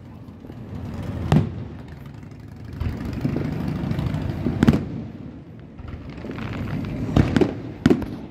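Aerial firework shells bursting overhead, heard as sharp booms. There is one about a second in, one near the middle and a quick run of three near the end, with a low rumble and crackle between them.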